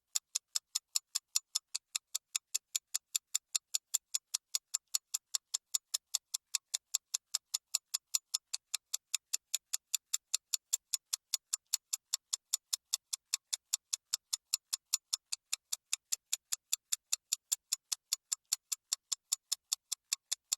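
Clock ticking fast and evenly, sharp light ticks at about four a second.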